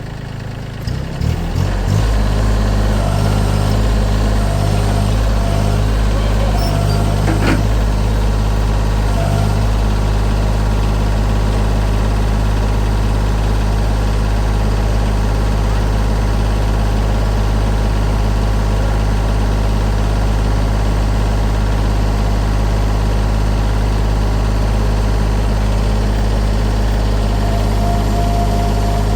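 Engine speeding up over the first two seconds, then running steadily at high speed, with a single short knock about seven and a half seconds in.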